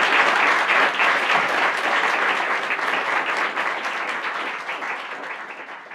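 Audience applauding, a dense patter of many hands clapping that fades steadily over the last few seconds.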